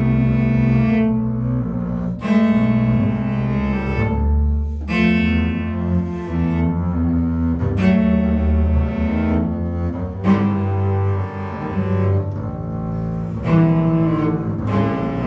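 Cello and double bass duo bowing sustained, overtone-rich notes in a contemporary classical piece, the pitches shifting every second or two, with a sharp accented attack every two to three seconds.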